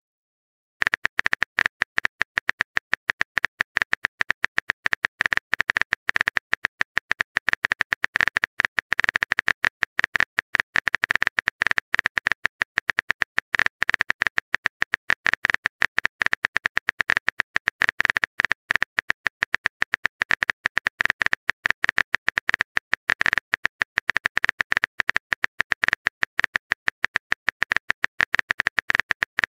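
Rapid keyboard-typing sound effect: a dense, unbroken run of clicks that starts about a second in and continues on.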